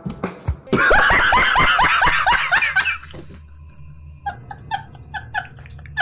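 A man laughing hard: a loud stretch of rapid, pitched cries in the first few seconds, then short bursts of laughter, several a second, from about four seconds in.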